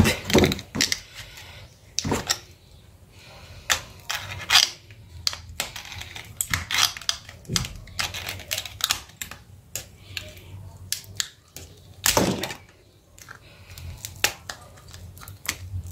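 Irregular sharp clicks and short scrapes of a screwdriver and pry tool working against the plastic and metal frame of an opened Asus Z008D smartphone, prying at its internals and battery. There is a louder scrape about twelve seconds in.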